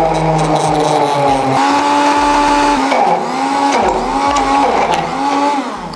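Electric blender motor running at speed while it blends tuna, olives and cream cheese. Its pitch sags and recovers several times as the blades bog down in the thick mixture, then it stops near the end.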